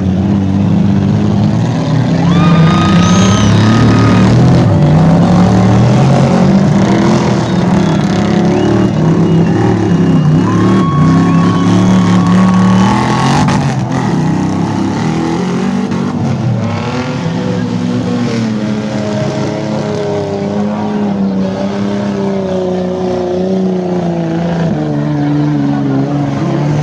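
Off-road 4x4 engines running and revving hard under load, the pitch rising and falling again and again, with a few brief high whistles over them.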